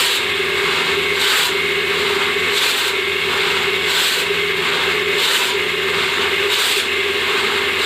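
Hand saw cutting through wood in steady back-and-forth strokes, a rasping stroke about every second and a half.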